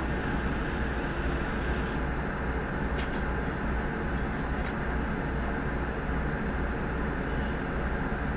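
Fire truck engine running steadily, heard from inside the cab, with a low, even throb underneath.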